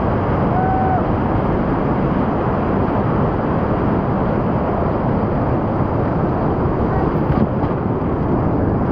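Whitewater rapid rushing: a loud, steady noise of churning water, with a brief faint whistle-like tone about a second in.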